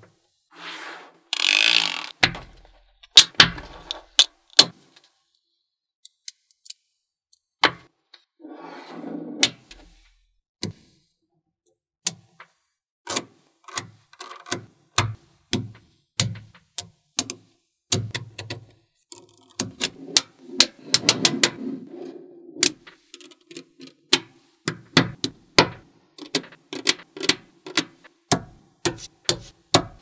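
Small magnetic balls clicking and snapping together as blocks and strips of them are set onto a build. The many sharp clicks come faster later on, broken by a few short rattles of balls rolling against each other.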